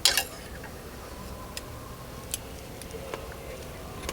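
A brief clatter at the start, then a few scattered light clicks and taps, typical of metal camp cookware and utensils being handled.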